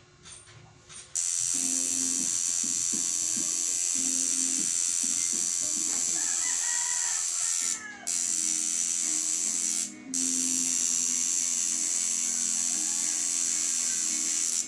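Tattoo machine buzzing steadily as the needle works into the skin, starting about a second in and cutting out briefly twice, near the middle and about two seconds later.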